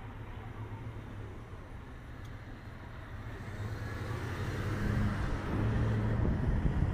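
A motor vehicle's engine running at idle close by, a low steady hum over street noise, getting louder from about halfway through.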